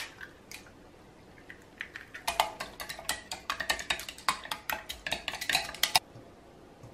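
Utensil clinking against a dish or bowl: one sharp clink at the start, then a quick run of ringing clinks for a few seconds that stops abruptly, as when stirring or beating something in a bowl.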